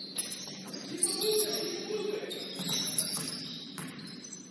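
Basketball game ambience in a gym, with a few short knocks and clicks from the court over a steady room hum.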